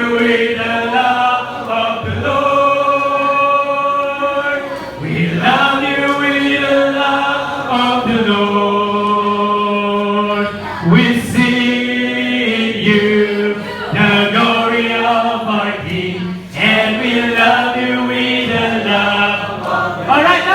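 Congregation singing a worship song together in long held phrases, many voices at once.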